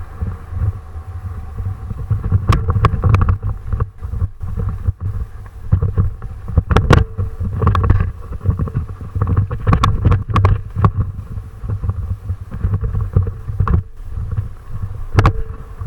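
Wind rumbling on the microphone of a moving camera, with frequent irregular rattles and knocks, as on a rough downhill run.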